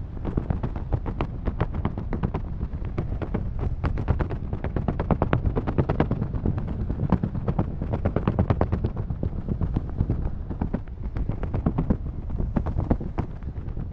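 Wind buffeting the camera's microphone in flight: a steady low rumble broken by rapid, irregular pops.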